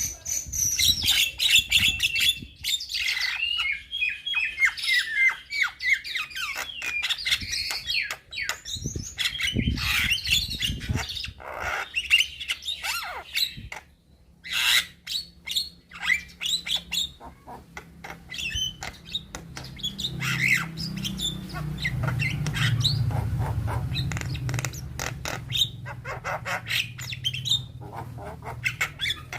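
Young Javan myna singing hard, a rapid run of whistles, chirps, squawks and clicks, with a short break about halfway through. A low hum comes in under the song in the second half.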